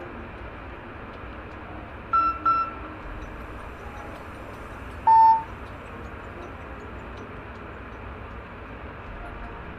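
Nokia 216 feature phone playing message alert tone previews: two short beeps about two seconds in, then a single lower beep about five seconds in. These are the phone's "Standard" and "Beep once" message alert settings being tried out.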